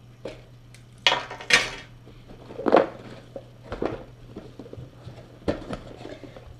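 Cardboard shipping box being opened: a knife slitting the packing tape, then the flaps pulled up. A few short scraping, tearing sounds, the loudest two just after a second in, then lighter cardboard rustles and knocks as the lid comes open.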